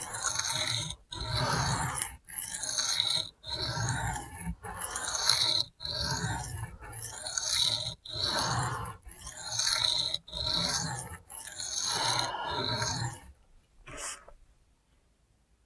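Steel knife blade (a Spyderco Shaman in Cruwear) scraped in rhythmic freehand strokes across a wet, coarse 100/80-micron sharpening stone, about one stroke a second, each with a short pause between. The strokes stop about 13 seconds in, with one brief last scrape just after. They are evening up the edge bevel on the coarse grit, raising a burr.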